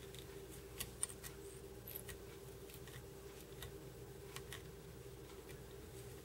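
Faint scattered ticks and light taps of tying thread and a metal bobbin holder as thread is wrapped in figure-eights around dumbbell eyes on a hook held in a fly-tying vise. A steady low hum runs underneath.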